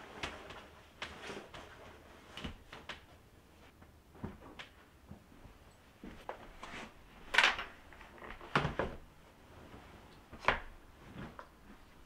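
Cotton bedding rustling and soft knocks as a duvet and pillows are smoothed and handled on a bed. There are three louder knocks in the second half.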